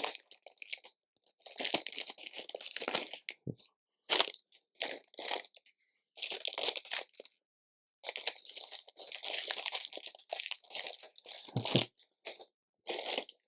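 Hands rummaging through loose plastic LEGO bricks: a rustling clatter in bursts of a second or two, with short pauses between.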